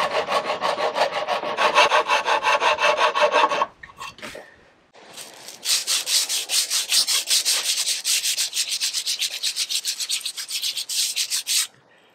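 Half-round wood rasp filing one face of a green wood slingshot fork in fast, even strokes. After a short pause, the fork is rubbed back and forth on a sheet of sandpaper laid flat to flatten that side, a quick, higher-pitched scratching that stops just before the end.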